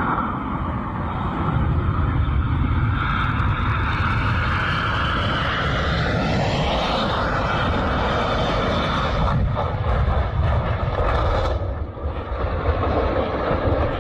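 Aircraft engine noise, loud and steady, with a whine that sweeps up in pitch about six seconds in.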